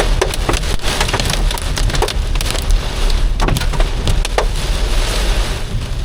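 Heavy rain drumming on a car's roof and windshield, loud and steady, with sharp hard hits scattered throughout, over the low rumble of the car driving.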